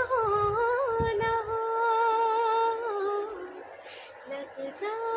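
A woman singing unaccompanied: a slow melody of long held notes with a slight waver, for about three seconds, then a short quieter pause and a new note near the end.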